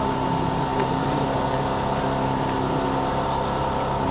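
A motor running steadily: a constant drone with a high tone held over it.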